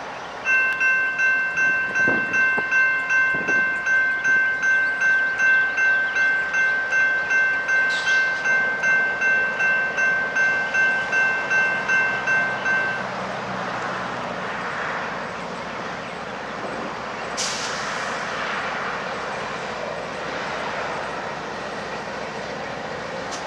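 Railroad grade-crossing bell ringing at about two strikes a second, stopping about halfway through. Then a Norfolk Southern GE C40-9W diesel locomotive approaches with its freight train, a steady rumble of engine and rail.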